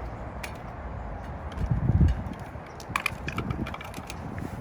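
Hands working a new inner tube into a bicycle tire around the wheel rim: a dull low thump about two seconds in, then scattered light clicks and taps.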